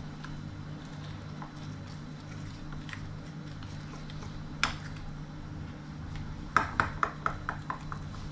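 Metal spoon stirring thick gram-flour batter in a ceramic bowl to break up the lumps, clinking against the bowl: one clink about halfway, then a quick run of clinks near the end, about five a second. A low steady hum runs underneath.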